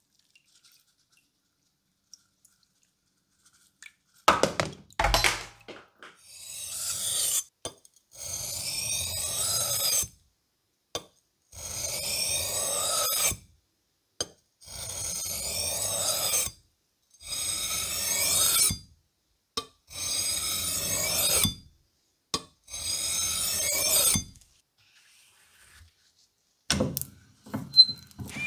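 Cleaver's steel blade pushed across a wet whetstone in seven long sharpening strokes, each a rasping scrape of about two seconds at an even pace. A couple of sharp knocks come just before the first stroke.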